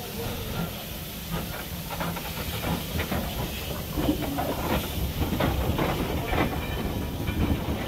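Robert Stephenson & Hawthorn 0-4-0 saddle tank steam locomotive moving slowly past. Steam hisses from low down around its cylinders, over the clank and knock of its wheels and rods on the rails. The sound grows louder from about halfway as the engine and its brake van come close.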